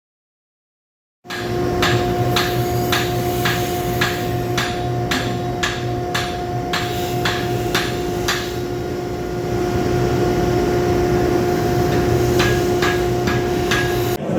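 Steady hammer blows, about two a second, forging a hot railroad spike into a knife blade, with a few lighter taps near the end. A steady hum with a faint drone runs underneath. The sound starts after about a second of silence.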